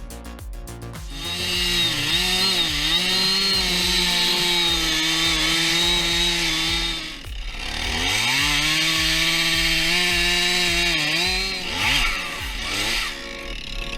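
Two-stroke chainsaw running at full throttle and cutting wood, its pitch sagging as the chain bites and recovering between cuts. It drops off the throttle about halfway through and revs straight back up. The tail of some music is heard in the first second.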